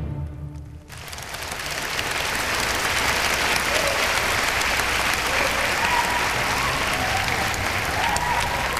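Theatre audience applauding. It starts about a second in, as the music ends, and swells to a steady level. A few cheering voices call out in the second half.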